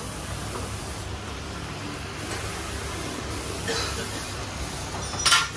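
Steady hiss of heavy rain with road traffic, broken near the end by two short, sharp hissing bursts, the second the louder.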